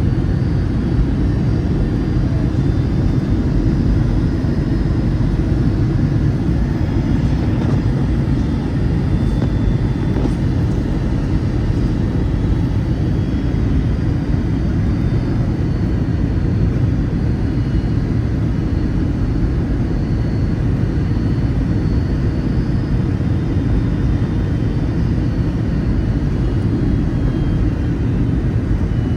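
Steady cabin noise of a Boeing 757-200 on approach, heard from a seat inside the cabin: a deep, even rumble of engines and airflow.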